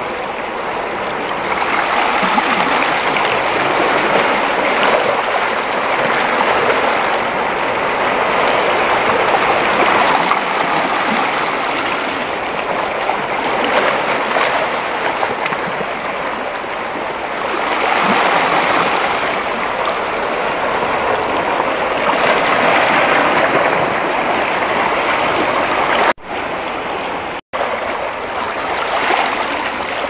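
Sea waves washing against a rocky shore: a steady rush of water that swells and eases every few seconds. The sound cuts out briefly twice near the end.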